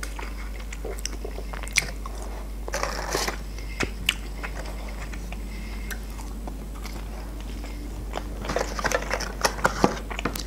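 A person eating French fries dipped in sauce close to the microphone: chewing with scattered sharp crunches and mouth clicks, busier near the end.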